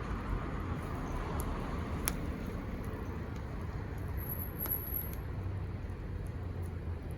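Wood fire burning with a steady low rush and a few sharp crackling pops, about two seconds in and again around the middle.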